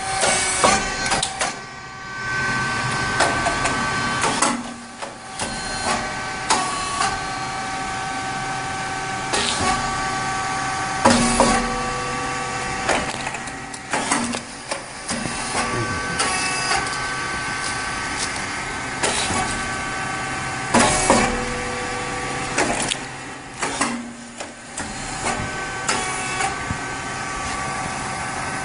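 Puffed rice cake machine running through its press cycles: a steady whine from its drive that stops and starts again, broken every few seconds by sharp pops and knocks as the heated mould opens and releases the puffed cakes.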